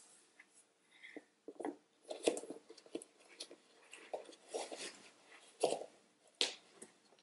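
Feet sliding into suede sneakers and the laces being pulled and tied: a string of short, irregular rustles and scuffs, a few of them louder.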